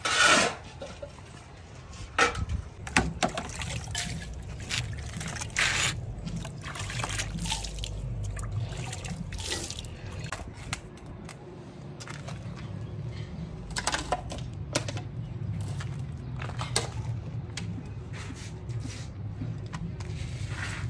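Water poured from a bucket onto a concrete base and trickling, amid scattered scrapes and knocks from a shovel in a sand pile and cement mortar work. The loudest is a sharp scrape right at the start.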